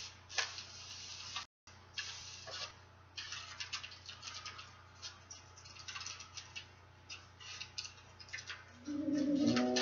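Crumpled aluminum foil crinkling and crackling in quick, irregular bursts as hands press and smooth it flat onto a table top. Background music comes in near the end.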